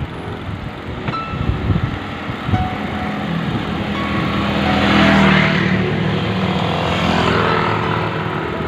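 Road traffic passing close by, its noise swelling to a peak about five seconds in and again, less strongly, a couple of seconds later, over background music.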